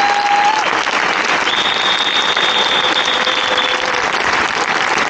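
A large outdoor crowd applauding steadily. A couple of long, steady tones sound over the clapping, a high one lasting about two seconds in the middle.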